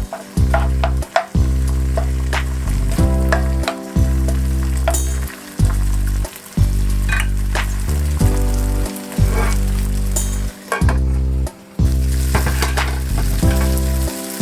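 Diced onion sizzling in hot sesame oil in a frying pan, stirred with a utensil that scrapes the pan again and again, under background music.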